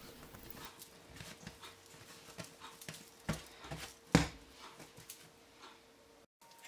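Hands folding and shaping a large ball of soft wholemeal bread dough on a work mat: scattered soft taps and handling noises, with a louder thump a little after four seconds, over a faint steady hum.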